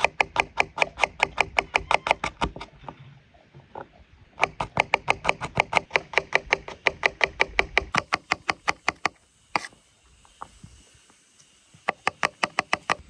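Kitchen knife chopping garlic cloves on a wooden cutting board: quick, even taps about six a second, in three runs with short pauses between.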